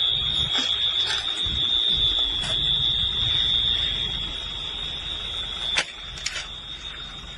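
An electronic alarm sounds one steady, unbroken high-pitched tone over a low rumbling background, with a few faint clicks and a sharp knock about six seconds in.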